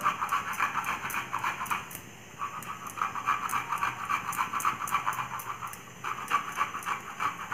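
Fresh ginger rubbed quickly back and forth on a small handheld grater: a rapid rasping scrape, stroke after stroke, in three runs with short breaks about two seconds in and about six seconds in.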